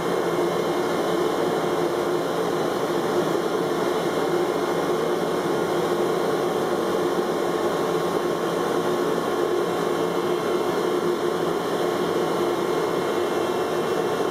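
CNC cutting machine running as it cuts carbon-fibre material: a loud, steady machine noise with no rhythm.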